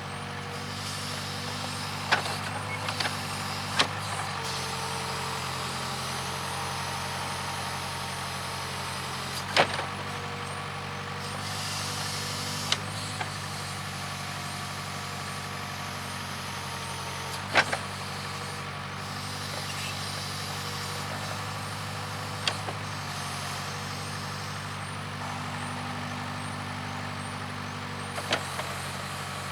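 Case 580K backhoe's four-cylinder diesel engine running steadily, its pitch shifting a few times as it works, with about eight sharp metallic clanks scattered through.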